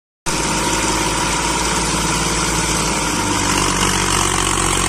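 1962 Massey Ferguson 35 tractor's diesel engine running steadily while it pulls a harrow through tilled soil, its exhaust smoking under the load.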